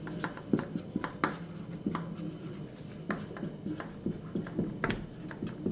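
Marker pen writing on a whiteboard: a run of short, irregular strokes and taps as a line of text is written out.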